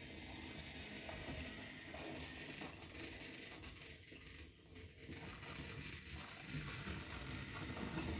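A toy train's small motor and gears running, with a steady fast clicking rattle that dips briefly about halfway.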